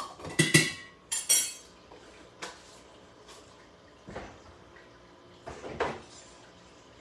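A metal spoon tapped a few times against the rim of a metal stockpot, ringing, to knock off garlic, followed by a bright clink and a few scattered knocks of things being handled on a kitchen counter.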